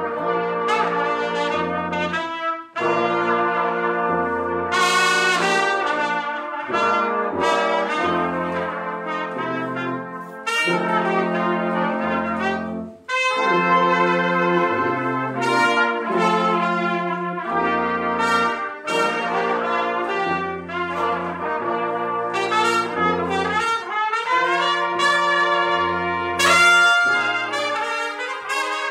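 A brass quintet of trumpets, French horn, trombone and tuba playing a piece together, the tuba walking a bass line under the chords. The music breaks off briefly twice, about three seconds and thirteen seconds in, between phrases.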